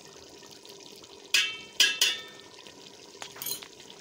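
A metal spoon knocks three times in quick succession against the rim of an aluminium cooking pot, each knock ringing briefly, with a softer knock near the end, as ginger-garlic paste is shaken off into the pot. Underneath is the low steady sizzle of lentils cooking in oil.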